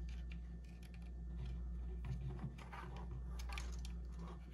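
Small screwdriver turning a tiny screw into a plastic drone propeller's hub: faint, irregular clicks and ticks of metal on plastic, over a low steady hum.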